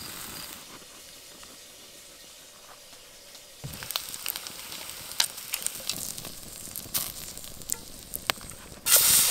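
Bacon frying in a steel pan over a wood fire: a faint sizzle at first, then sharp pops and crackles of spitting fat from about four seconds in. Near the end a much louder, steady sizzle starts suddenly.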